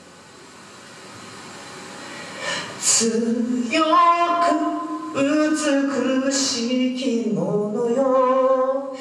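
Male vocalist singing into a microphone through a live PA, with long held notes and a slide down in pitch near the end. It starts softly and the voice comes in loud about three seconds in.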